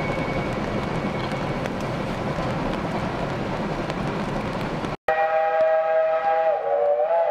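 Steady noise of a train rolling along the track, then after a sudden break a steam locomotive whistle blows a long chord of several tones that dips slightly in pitch near the end.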